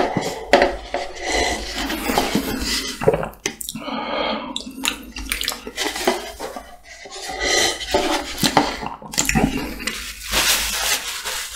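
Close-up wet mouth sounds of slurping and gulping noodles and sauce straight from a paper cup-ramen tub, with chewing, smacking and the cup and chopsticks knocking and rustling in the hand.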